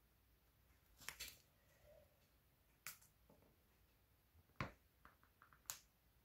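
Near silence broken by a few faint, sharp clicks and small ticks, roughly a second apart: a diamond-painting drill pen tapping resin drills down onto an adhesive bookmark.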